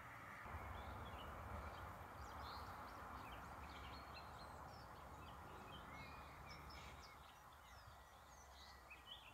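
Faint outdoor birdsong: many short chirps and calls from several birds, over a low steady rumble that eases near the end.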